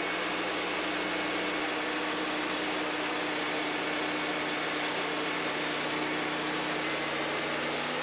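Wood-Mizer LT40 portable sawmill running steadily, its engine and band saw going with a continuous hum and hiss.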